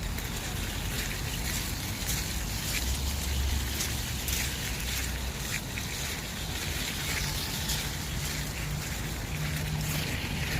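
Steady outdoor noise of rain and wind on the microphone, with light pattering clicks. A low hum rises about three seconds in and fades a couple of seconds later.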